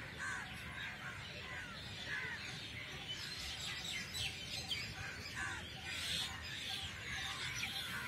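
Birds chirping: many short, overlapping calls and quick up-and-down whistled notes, over a low steady background noise.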